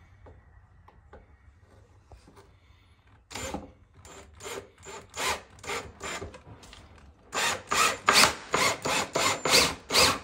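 Ryobi cordless drill/driver driving a screw into a wooden shelf in short repeated pulses, fainter at first and louder and quicker from about seven seconds in. A few small handling clicks come before it.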